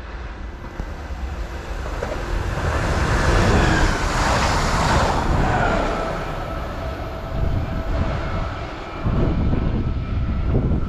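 Electric passenger train passing along the platform: rail and running noise swells to its loudest about halfway through, and a faint whine drops in pitch as the train goes by. The noise stays up as it moves away, with low rumbling gusts near the end.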